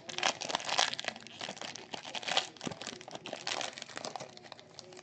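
Trading-card box packaging being torn open by hand: the wrapping crinkles and rips in a dense run of irregular crackles.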